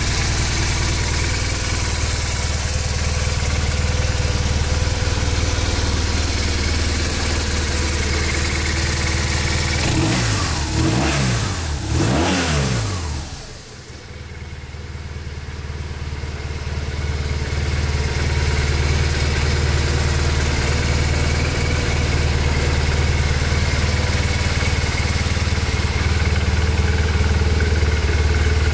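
BMW R1200RT's boxer-twin engine idling steadily, with three quick blips of the throttle about ten to twelve seconds in, after which it is briefly quieter before settling back to a steady idle.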